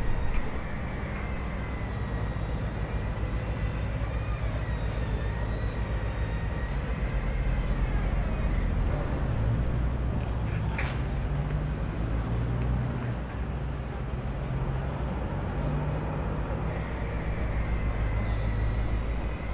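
Steady low rumble of heavy construction machinery and road vehicles running, its pitch shifting now and then, with a faint wavering high whine above it.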